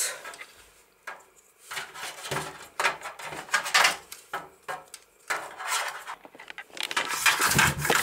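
Hard-drive cables and their plastic connectors being handled and plugged in inside a computer case: irregular clicks, taps and light rattles.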